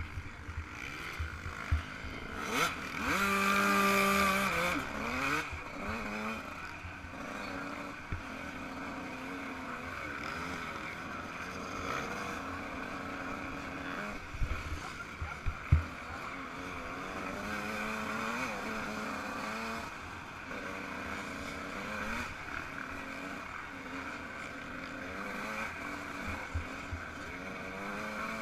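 Yamaha YZ125 single-cylinder two-stroke motocross engine revving up and down again and again as it is ridden, loudest about three to five seconds in, with wind noise on the microphone and a few sharp knocks.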